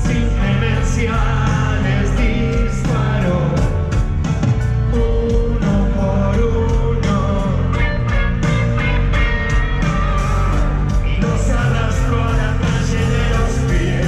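Live rock band playing a song: a singer over drums, bass and guitar, loud and steady throughout.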